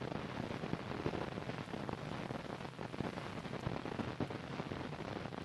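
Crackling hiss of an old film soundtrack: steady noise dense with small pops and clicks, with no other sound over it.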